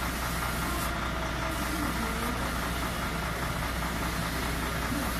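Heavy dump truck's diesel engine idling steadily with a low, even hum.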